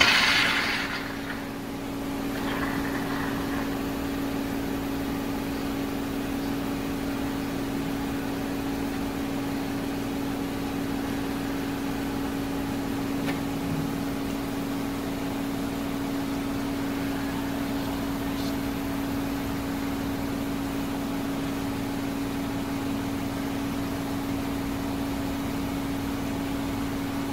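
A small electric motor or appliance humming steadily at one low pitch, after a brief clatter right at the start.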